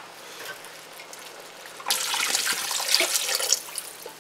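Chicken broth poured from a can into a pot of browned sausage, beans and tomatoes: a splashing gush of liquid that starts about two seconds in and lasts nearly two seconds before easing off.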